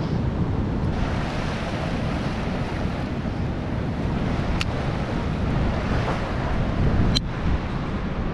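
Wind buffeting the microphone over the steady wash of rough surf breaking below a jetty. Two sharp clicks cut through, one about halfway through and a louder one near the end.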